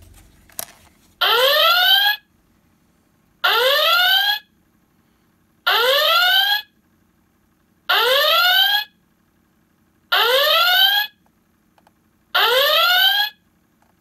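ThinkGeek Star Trek U.S.S. Enterprise door chime sounding its red alert klaxon: a rising electronic whoop, six times about two seconds apart, from the toy's small speaker.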